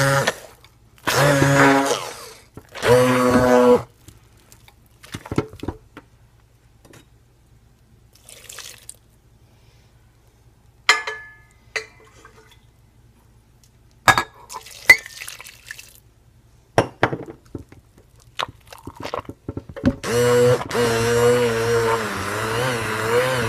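Stick blender in thick hot-process liquid soap paste, run in three short pulses, then set aside for a quiet stretch with a few light knocks and scrapes. From about twenty seconds in it runs continuously, its pitch wavering as the stiff paste loads the motor.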